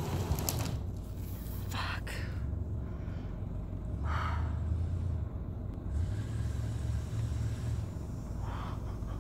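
A vehicle engine running with a low, steady rumble, with a few brief swishes over it.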